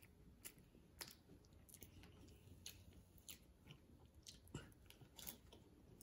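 Faint close-up sounds of a child chewing soft tiramisu cake: a scattering of short mouth clicks and smacks, roughly one or two a second.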